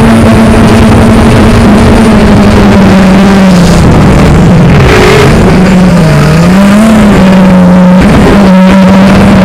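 Loud, steady motor hum over a noisy hiss; about halfway through its pitch dips and wavers for a couple of seconds, then steadies again.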